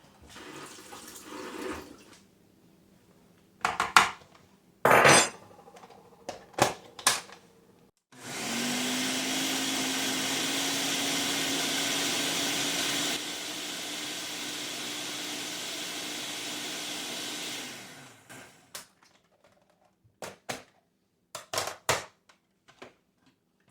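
Electric blender running for about ten seconds, puréeing thawed frozen tomatoes and peppers. Its motor tone rises slightly as it spins up, and it gets somewhat quieter partway through. Before it start there are a few knocks and clatters of kitchenware being handled.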